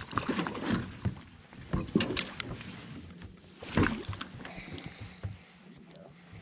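Irregular knocks and clatters of gear being handled in a fishing boat, the loudest a little before four seconds in, over light rustling and a faint steady hum.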